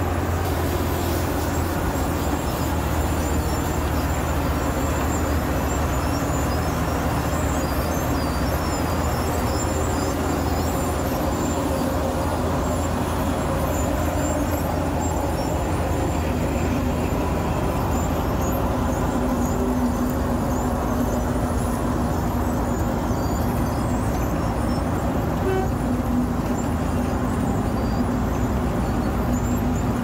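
Wirtgen W 210 Fi cold milling machine running steadily while milling asphalt: a continuous loud diesel drone with the noise of the cutting drum, and a steady hum that comes through more plainly about halfway in.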